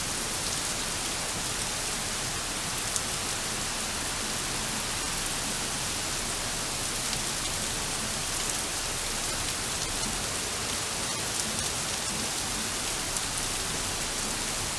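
Torrential rain pouring down in a wall onto the street, grass and pavement: a steady, even hiss.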